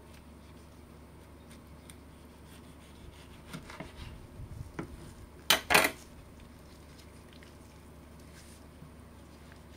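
Kitchen knife cutting tomatoes on a wooden cutting board: a few soft cutting and scraping sounds, then two sharp knocks in quick succession about halfway through, the loudest sounds.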